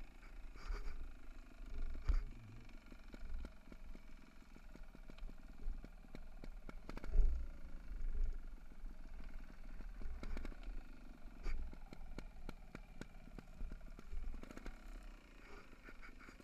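Mountain bike riding fast down a rough forest trail: tyres running over dirt and leaf litter, and the bike rattling and knocking over bumps, the hardest knock about seven seconds in. Wind buffets the camera's microphone, giving a low rumble.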